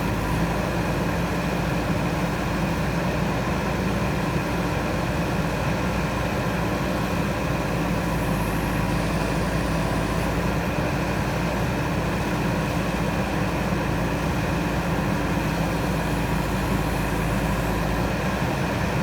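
JCB 3DX backhoe loader's diesel engine running steadily at an even speed.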